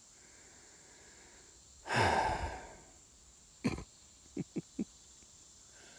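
A man's long, heavy breath out across the microphone about two seconds in, the loudest sound here. A little later a sharp click and then three quick short taps.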